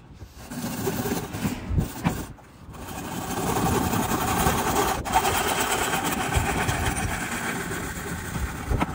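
Hand saw cutting through an umbrella-holder part: rapid, rasping back-and-forth strokes, with a short pause about two and a half seconds in before the sawing runs on steadily.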